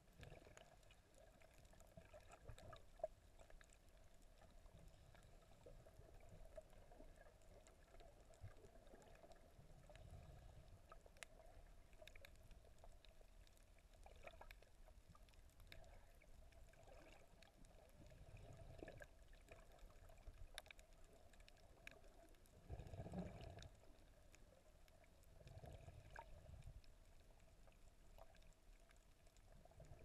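Near silence: faint muffled underwater ambience picked up by a submerged camera. There are soft low swells of water movement every few seconds, a faint steady hum and scattered faint clicks.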